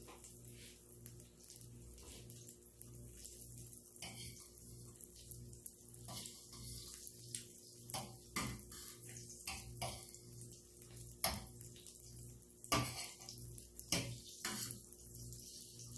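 Butter faintly sizzling as it melts in a hot stainless pan, over a low hum that pulses about twice a second. A metal fork scrapes and taps against the pan several times in the second half.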